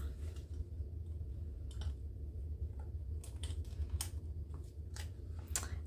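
Light clicks and taps of a frosted plastic cash envelope being worked onto the metal rings of a ring binder, with faint rustling of the plastic sheet. The envelope's punched holes sit slightly off from the rings, so it takes some fiddling to thread on.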